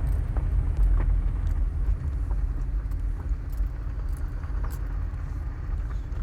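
Steady low rumble of a car's engine and tyres heard from inside the cabin while it is driving.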